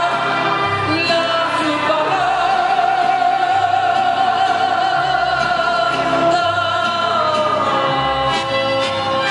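A woman sings a ranchera live with a mariachi band of violins and a bass line underneath. She holds one long high note, then steps down near the end to a lower held note.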